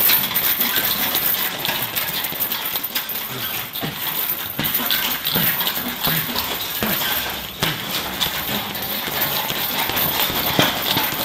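Irregular thuds of a medicine ball driven against a heavy punching bag, blow after blow.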